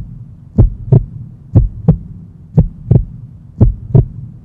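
Heartbeat sound effect: paired 'lub-dub' thumps about once a second, four times, over a low steady hum.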